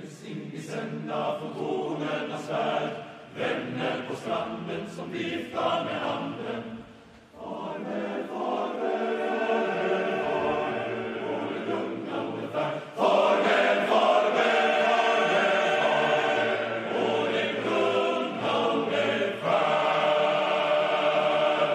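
Large male voice choir of about 200 singers performing a song without instruments. It breaks off briefly about seven seconds in, then comes back and grows louder about thirteen seconds in.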